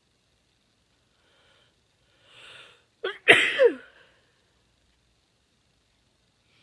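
A woman's strong sneeze: a breathy inhale about two and a half seconds in, then a sharp, loud sneeze just after three seconds with a voiced cry that falls in pitch.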